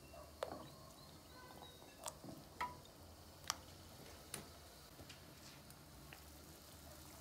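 Carrot pieces dropped one at a time into a pot of hot water: several small, sharp plops and clicks about a second apart.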